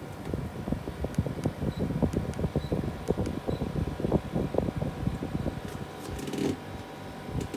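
Whirlpool PACW9COL portable air conditioner running, its fan humming while the air stream buffets the microphone in uneven low rumbles. Three short high beeps come a little under a second apart, starting about two seconds in, as the unit acknowledges button presses on its remote control.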